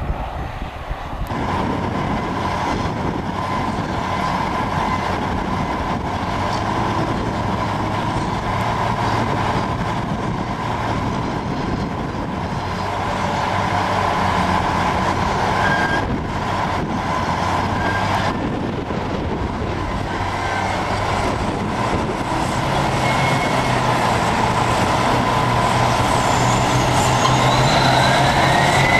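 Caterpillar 631E wheel tractor-scraper's diesel engine running, a steady drone that grows louder toward the end. A rising whine comes in near the end.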